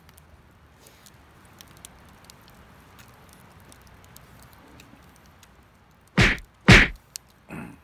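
Wood fire in a fire pit crackling faintly with scattered small ticks. About six seconds in come two loud, sharp sounds half a second apart, then two softer, shorter ones.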